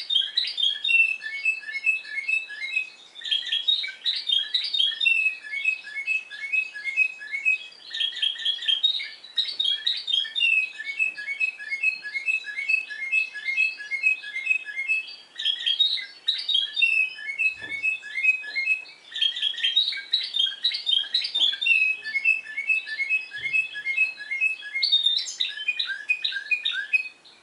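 Timbrado Español song canary singing in the discontinuous (descontínuo) style: phrases of rapid, repeated short notes, with brief pauses between phrases every few seconds.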